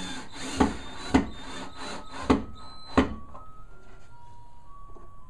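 Cordless drill boring into a walnut strip, the motor run in short bursts with four sharp surges, stopping about three seconds in. A simple chiming tune from an ice cream truck, playing Christmas music, sounds faintly throughout.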